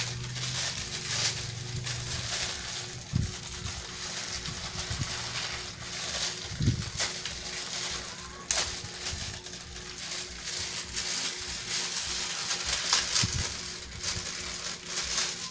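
Plastic packaging crinkling and rustling as it is handled, in a continuous run of small crackles, over a steady low hum.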